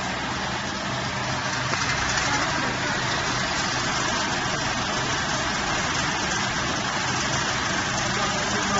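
TONY TYJ760 wood pellet machine running steadily as it presses sawdust into pellets: a continuous dense mechanical din over a low motor hum.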